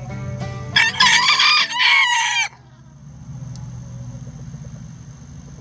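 A bantam rooster crowing once, a loud crow of nearly two seconds starting about a second in. The tail of a plucked-string music track is heard just before it.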